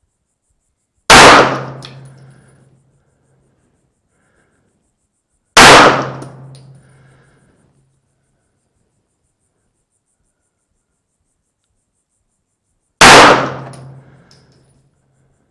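Three 9mm pistol shots, the second about four and a half seconds after the first and the third about seven seconds later, each ringing out briefly before fading.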